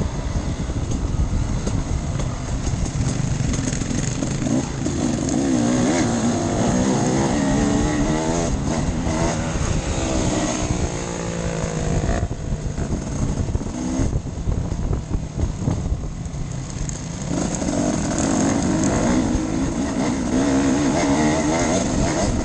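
Enduro motorcycle engine being ridden off-road, revving up and down with the throttle. It eases off for a few seconds in the middle, then opens up again.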